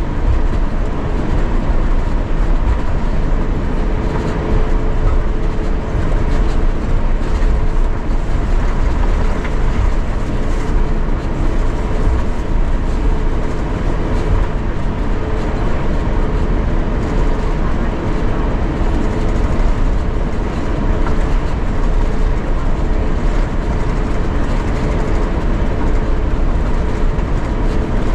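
Cabin noise inside an Airbus A350-900 on the ground before takeoff: a steady, heavy low rumble with two steady humming tones over it.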